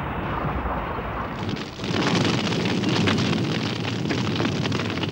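Explosion sound effect for a large wooden war machine blowing up. A low rumble gives way about two seconds in to a loud blast, then a steady rumbling, crackling fire.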